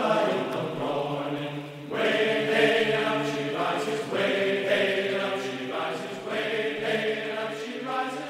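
Chanting voices in a choral music interlude, holding long notes, with a new phrase starting about every two seconds.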